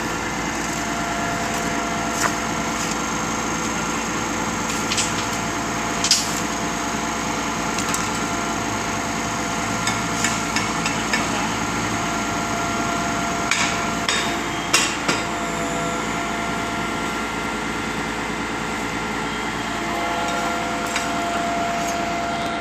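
Concrete pump's engine running steadily, with scattered sharp knocks at irregular intervals, loudest about six seconds in and again around the thirteen to fifteen second mark.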